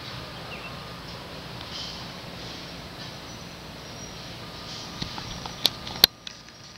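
Steady outdoor background noise, then a few sharp clicks in the last second and a half, the two loudest about half a second apart.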